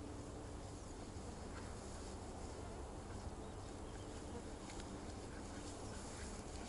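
Quiet meadow ambience with a faint insect buzz and a faint low hum, broken by a few light ticks.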